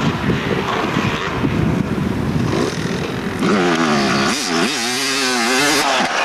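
Dirt bike engine revving as the bike comes closer. A rough, noisy rumble for the first few seconds gives way, about three and a half seconds in, to a louder, clearer engine note whose revs rise and dip several times.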